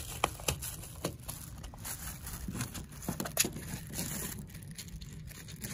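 Plastic bags rustling and crinkling, with scattered small clicks and taps, as hands work bait paste onto a hook, over a low steady rumble.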